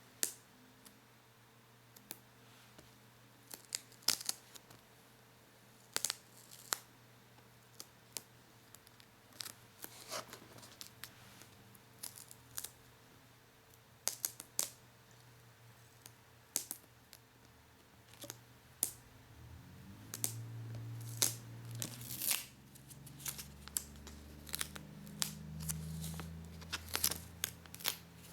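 Paper and plastic being peeled and scratched close to the microphone: irregular sharp, sticky crackles and snaps, some in quick clusters. A low hum comes up underneath about two-thirds of the way through.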